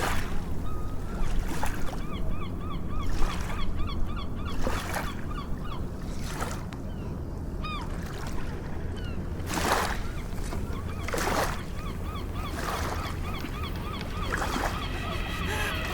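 Gulls calling in quick repeated series over a steady low rumble, with several surges of surf washing in and out. The calls are thickest in the first half and thin out later.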